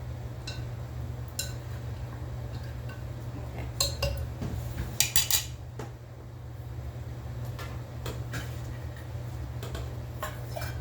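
Kitchen utensils and dishes clinking and knocking as slow-cooked ribs are handled out of a slow cooker. The clinks come scattered, with a cluster of sharper ones about five seconds in, over a steady low hum.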